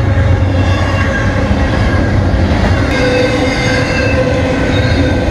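Double-stack intermodal train's well cars rolling past close by: a loud, steady rumble of steel wheels on rail. Several high, thin squealing tones come and go over it.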